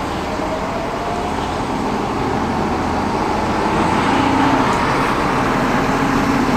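Fire department truck's engine running as it drives up, the steady hum growing louder over the first four seconds or so.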